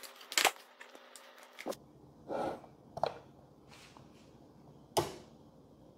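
Unboxed laser engraver parts being handled on a table: scattered light clicks and a short rustle, with a sharper knock about five seconds in.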